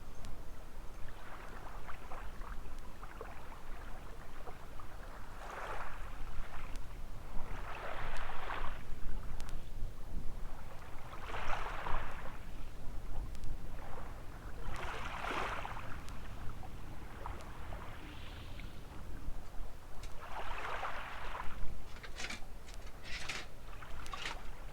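Small waves washing in on a sandy shore, a rush of water rising and falling every few seconds over a steady low wind rumble on the microphone. A few short sharp clicks come near the end.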